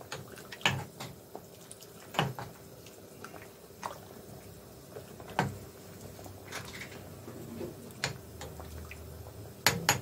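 Metal spoon stirring vegetables in a pot of broth, clinking against the metal pot every second or two, with two sharp knocks close together near the end.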